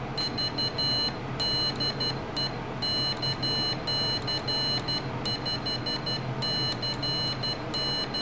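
Piezo buzzer sidetone of an Arduino Morse code keyer sending CW: a high-pitched beep keyed on and off in short dots and longer dashes.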